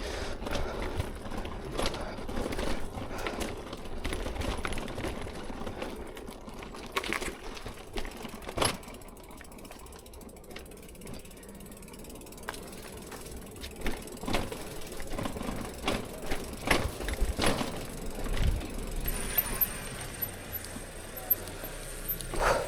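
Bicycle being ridden, with scattered clicks and rattles from the bike, ticking from the freewheel, and a low rumble.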